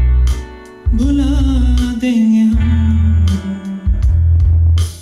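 A song with singing, guitar and heavy bass, played through a Zebronics Zeb Sonic Bar 100 soundbar and subwoofer in music mode. A held sung note with vibrato starts about a second in and slowly sinks in pitch, over strong, repeated bass notes.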